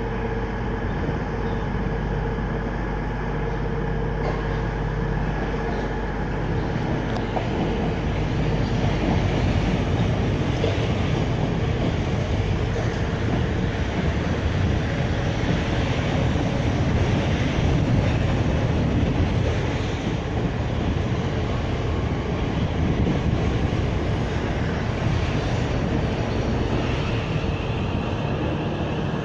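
Train pulling into a station: a continuous rumble of wheels on rail that grows louder through the middle and eases off later as it slows, with a steady whine in the first half.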